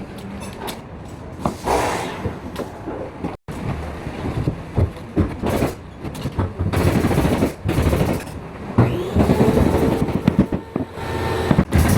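Carpentry work on an interior building site: clattering with many sharp knocks and clicks, some in quick runs.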